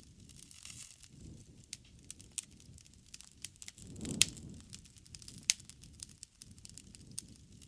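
Wood fire burning, with sharp irregular crackles and pops over a soft low rumble of the flames. There is a louder flare and pop about four seconds in.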